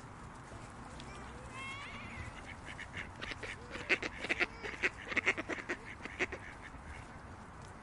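Ducks quacking in a quick, irregular run of a dozen or more quacks that starts about two and a half seconds in and stops near the end, after a brief gliding call. Under it runs a steady low outdoor background hum.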